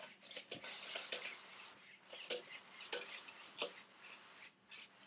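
Light, irregular plastic clicks and ticks from a remote-controlled toy robot dinosaur, one or two a second at first and coming more often near the end.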